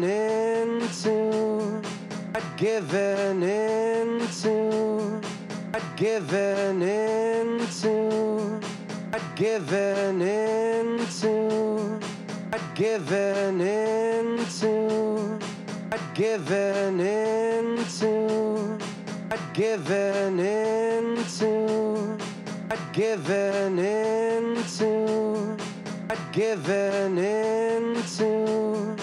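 Playback of a live band recording: drums keeping a steady beat under bass, electric guitars and keys.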